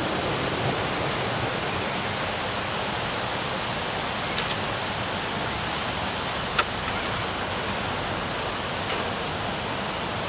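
Steady rushing of river water, with a few short sharp clicks.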